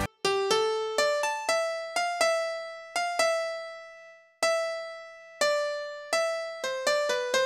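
Korg M1 'M1 House Piano' preset, in the software version of the synthesizer, played one note at a time on a keyboard: about fifteen sharp piano notes, each fading away, two of them held longer around the middle. This is the sharp dance electric-piano sound of 90s house.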